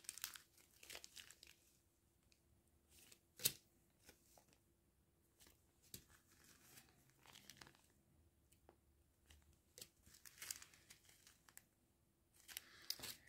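Small plastic zip-lock bags of diamond-painting drills crinkling as they are handled: faint, scattered crackles, with one louder crackle about three and a half seconds in and a busier stretch near the end.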